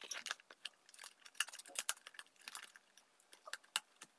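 Cardboard packaging of a gimbal stabilizer being handled: a box slid out of its sleeve and fiddled with, making a run of small clicks, taps and rustles.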